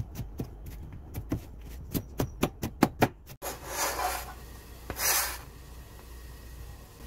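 Kitchen knife chopping onion, pepper and carrot on a cutting board, about a dozen quick knocks over three seconds. After a cut, two scraping swishes as the knife blade pushes the minced vegetables off the board into a pan.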